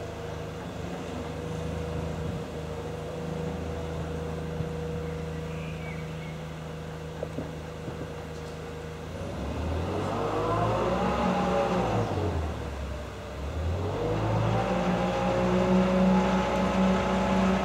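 Mobile crane's diesel engine running steadily, then revved up about nine seconds in, briefly dropping back and held at higher revs, louder, near the end, as the crane handles a suspended railway wheelset.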